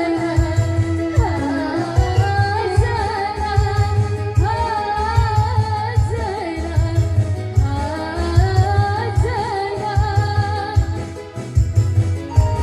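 A song: a voice sings an ornamented melody with wavering, sliding notes over a backing track with a steady, pulsing bass beat.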